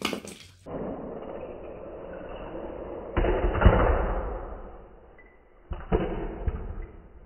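Die-cast Hot Wheels cars rolling fast down plastic track lanes. The rolling rattles loudest about three seconds in as the cars run through the blue end piece and fly out, then fades. Light knocks follow a little later as the cars land and tumble on carpet.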